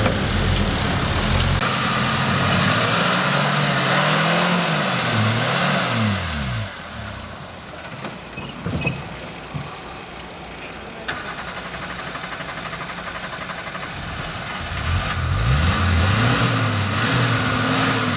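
Suzuki off-road 4x4's engine revving up and down in repeated sweeps as it crawls through a deep trench. There is a quieter stretch in the middle with a few knocks, then more revving near the end.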